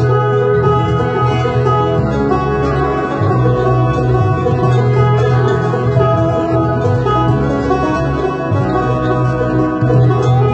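Banjo picked steadily over a band backing with a strong, steady bass line, in an instrumental passage with no singing.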